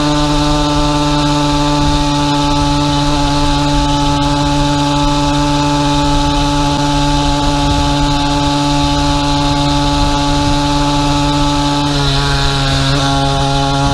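A 50cc two-stroke pocket bike engine on a motorized bicycle running at a steady cruising speed. Its pitch eases down slightly about twelve seconds in.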